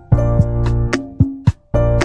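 Background music with a quick, steady beat of short notes, breaking off briefly about one and a half seconds in.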